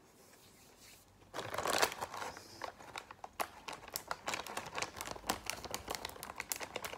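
A foil crispy-seaweed snack bag crinkling and crackling as it is handled and its resealable zip top is pressed shut. The sound starts about a second in and goes on as a dense run of small crackles.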